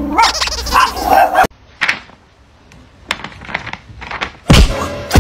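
Small dogs yapping and whining in short rising-and-falling calls for about a second and a half. After a cut, scattered clicks and scrapes, then a loud thud near the end.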